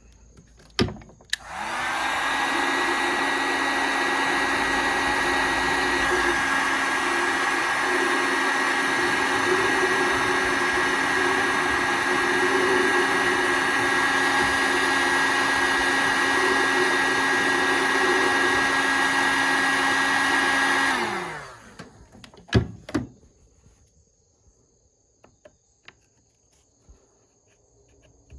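Handheld heat gun running steadily for about twenty seconds, then winding down in pitch as it is switched off. There is a sharp click just before it starts and another just after it stops.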